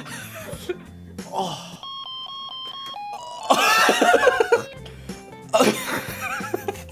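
Edited-in comic music: a short electronic chime melody of stepped beeping notes about two seconds in, followed by brief voice-like sounds.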